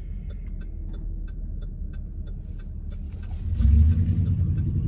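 Car engine and road rumble heard inside the cabin, with a turn signal ticking evenly about three times a second. About three and a half seconds in, the engine grows louder as the car accelerates.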